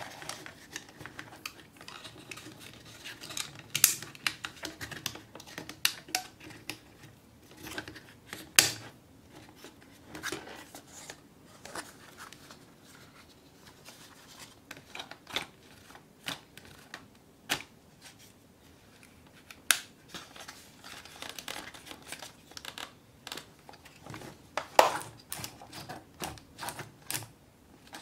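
Stiff printed card being handled, folded and pushed together by hand: irregular crisp clicks, taps and paper rustles, a few of them sharper and louder.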